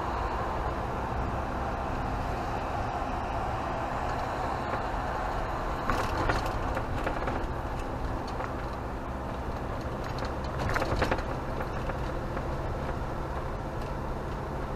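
Steady engine and road noise inside a motorhome's cab as it drives through town, with two brief louder swells of noise about six and eleven seconds in.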